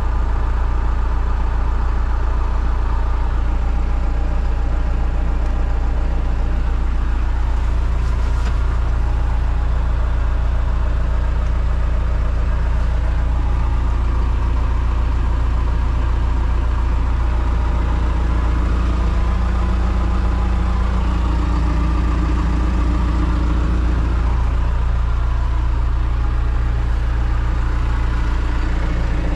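John Deere 310SE loader backhoe's diesel engine idling steadily.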